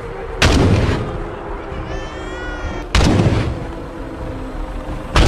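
Three heavy gunfire- or artillery-like blasts, about two and a half seconds apart, each dying away over about half a second. A short, wavering high-pitched tone sounds between the first and second blast.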